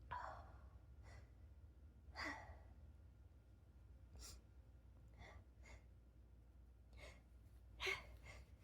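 Faint breaths and sighs, several short intakes and outbreaths of air, from a person whose tickling nose has them on the edge of a sneeze.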